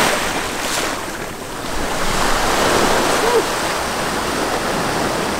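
Ocean surf washing up and draining back over the sand in the shore break, swelling and easing.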